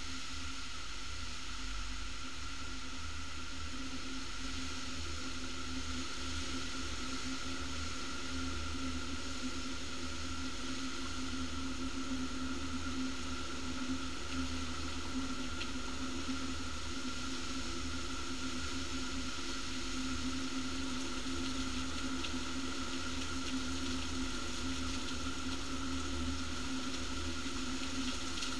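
Heavy rain pouring steadily in a violent storm, an even hiss with a few faint ticks.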